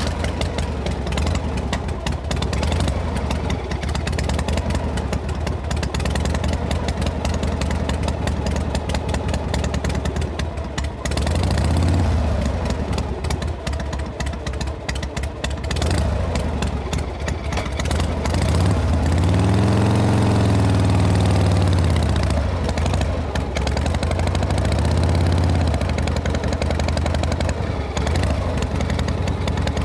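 Harley-Davidson Panhead V-twin motorcycle being ridden, its engine pulsing steadily under a rush of wind on the microphone. The revs swell and fall back a few times, most clearly about twenty seconds in.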